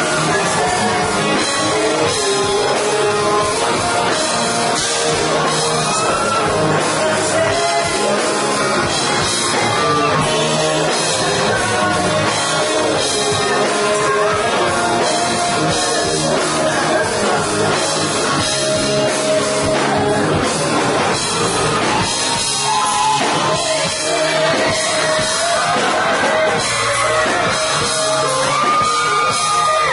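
Live rock band playing loudly through a PA: distorted electric guitar and drum kit under male lead vocals singing.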